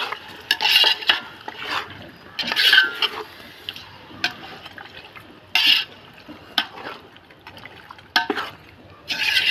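A metal spoon stirring chicken pieces in oil in a large metal pot: irregular scrapes and knocks against the pot, the louder strokes coming every second or two.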